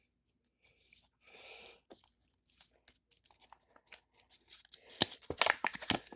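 A folded paper instruction sheet being unwrapped and unfolded by hand: soft rustles in the first two seconds, then scattered small crinkles and sharper crackles about five seconds in.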